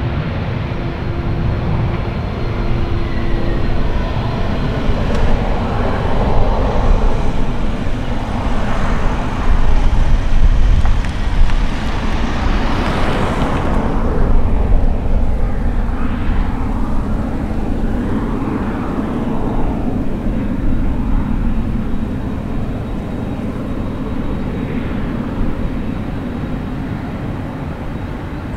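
Boeing 767-300 airliner's twin jet engines rumbling and rushing during the landing roll after touchdown. The noise swells to its loudest about ten to fourteen seconds in, then eases off steadily.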